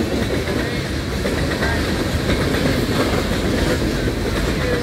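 Loaded coal hopper cars of a long freight train rolling past: a steady rumble and rattle of steel wheels on the rails.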